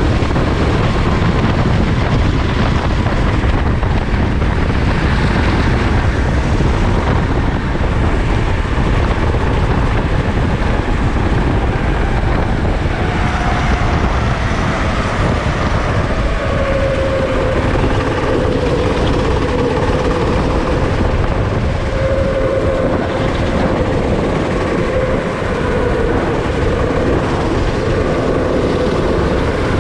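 Sodi rental go-kart's engine running at racing speed, heard from on board the kart with road and wind noise. Its note drops about halfway through and then holds steady.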